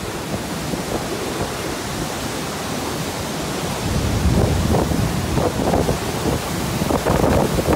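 Violent storm wind with driving rain, the gusts buffeting the microphone with a low rumble. The gusts grow stronger and more uneven about halfway through.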